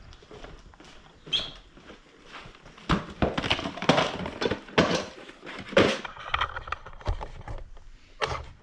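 Car parts and their packaging being handled and set down: rustling with several sharp knocks, busiest between about three and six and a half seconds in.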